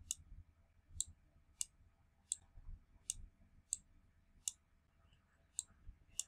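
Computer mouse button clicking, about nine faint single clicks spaced half a second to a second apart, as anchor points are placed one by one while drawing a path with a pen tool.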